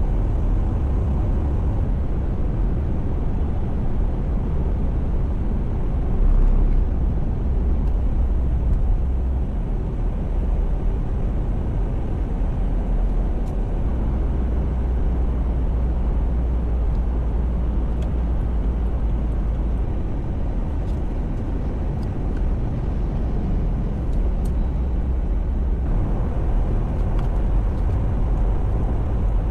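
Steady low rumble of a car driving in traffic, engine and tyre noise with no break, swelling briefly about six seconds in.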